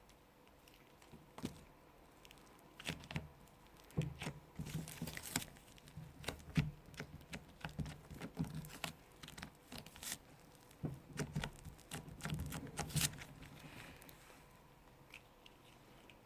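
Slime being squeezed and kneaded by hand, making irregular soft clicks, pops and squelches, with quiet stretches near the start and end.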